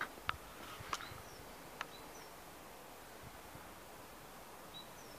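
A few short, high, falling bird chirps over a faint steady outdoor hiss, with four sharp clicks in the first two seconds.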